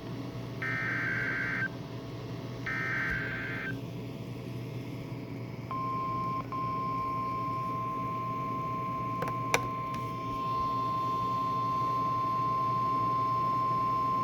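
NOAA Weather Radio alert: the last two of three buzzy SAME data bursts, about a second each, then after a short gap the steady single-pitch 1050 Hz warning alarm tone, held for about nine seconds, which signals that a weather warning follows. A single click sounds partway through the tone, over a steady receiver hum.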